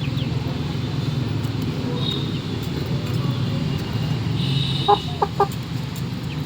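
Aseel rooster giving three short, sharp clucks in quick succession about five seconds in, over a steady low background rumble.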